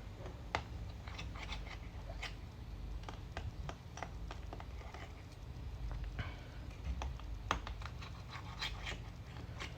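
Scattered light clicks and taps of a precision screwdriver and tiny Torx T3 screws being taken out of a MacBook Pro and set down one by one, over a low steady hum.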